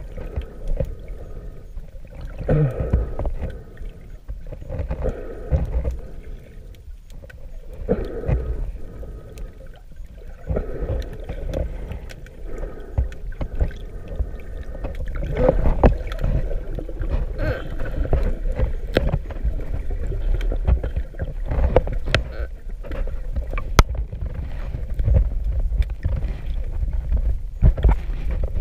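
Water sloshing and gurgling, heard muffled from underwater, with a constant low rumble, irregular surges and a few sharp clicks; it grows louder about halfway through.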